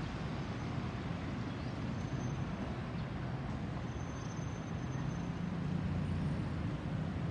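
Distant Airbus A320-216 jet airliner passing overhead, its CFM56 turbofan engines heard as a steady low rumble that swells a little in the later seconds.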